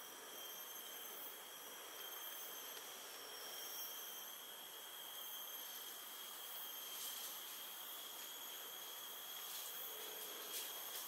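Tropical forest ambience dominated by insects, a dense steady drone with several high-pitched whining tones held throughout. A few short, sharp sounds stand out in the second half.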